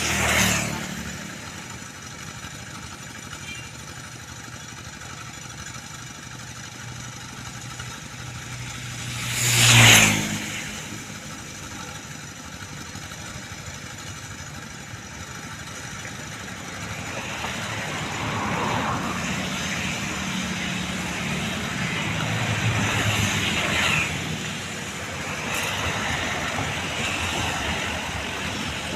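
Motor vehicle engines running, with two vehicles passing close by, one right at the start and one about ten seconds in, each rising and falling quickly. An engine runs louder from about halfway through, its speed rising and falling.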